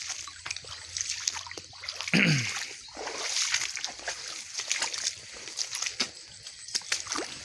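Footsteps splashing and sloshing through shallow, muddy water, with many small wet clicks. A brief voice falling in pitch comes about two seconds in and is the loudest moment.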